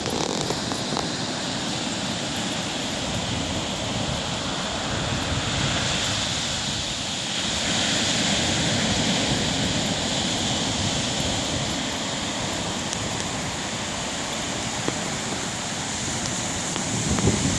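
Ocean surf breaking and washing up a sandy beach, a steady rushing that swells somewhat about six to ten seconds in.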